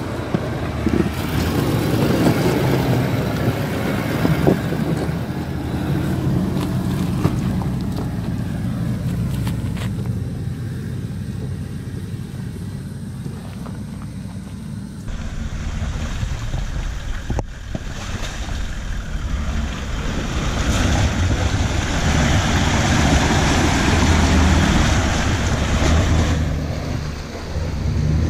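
Toyota LandCruiser 76 series 4.5-litre turbo-diesel V8 working at low revs as it crawls over rough off-road tracks, with wind noise on the microphone. The sound changes abruptly about halfway through and grows louder near the end.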